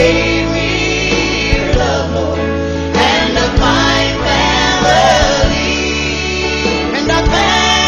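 Gospel music: voices singing together over steady bass-led instrumental backing.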